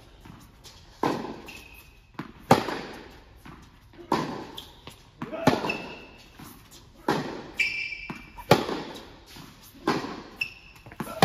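Tennis rally: racquets striking the ball back and forth, seven sharp hits about a second and a half apart, each ringing on in a reverberant indoor hall. Short high shoe squeaks on the hard court come between the shots.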